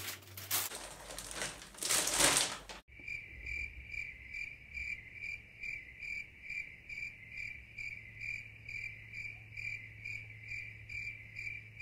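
Plastic wrap crinkling as it is pulled off, then an abrupt switch to a cricket chirping in a steady, even rhythm of about three chirps a second.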